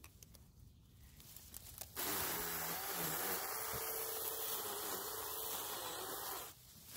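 A 21-volt cordless mini chainsaw starts suddenly about two seconds in and runs for about four and a half seconds with a steady electric whine, its chain cutting through brush. It then stops abruptly.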